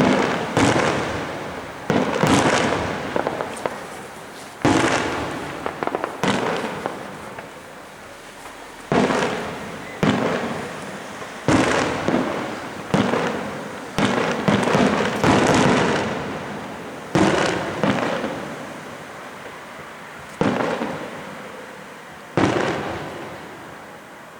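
Fireworks display: more than a dozen sharp bangs at irregular intervals, some in quick succession. Each bang is followed by a crackling, fading tail.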